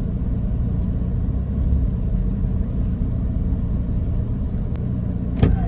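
Steady low rumble of a car heard from inside the cabin, with a single short knock near the end.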